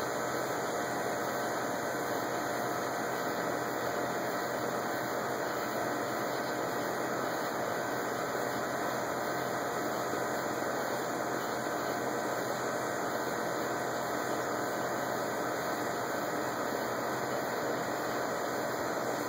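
Steady, even background hum and hiss with no thunder and no distinct events.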